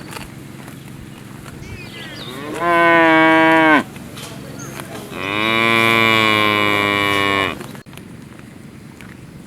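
A cow mooing twice: a call of about a second, then after a short gap a longer call of over two seconds.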